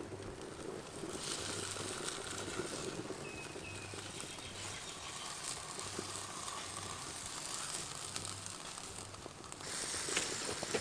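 Seasoned pig ears sizzling on a flat stone heated by a wood fire, a steady hiss that sets in about a second in, with a few sharp crackles, one louder near the end.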